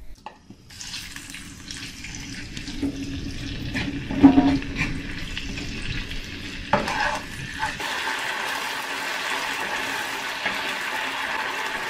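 Yogurt-marinated diced chicken sizzling in a non-stick frying pan as it is scraped in from a bowl and stirred with a wooden spatula; the sizzle builds steadily louder and brighter. A loud knock about four seconds in and a sharper stroke a few seconds later come from the spatula and dish against the pan.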